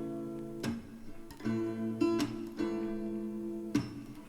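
Background music: strummed acoustic guitar chords in a soft pop song, played between sung lines.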